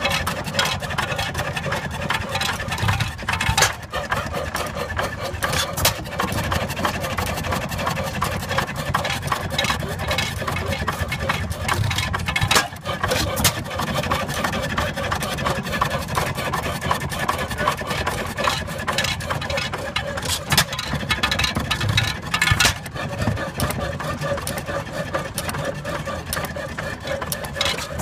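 A Bates & Edmonds antique stationary gas engine with a horizontal cylinder running, with a steady mechanical clatter and a few louder knocks at irregular intervals.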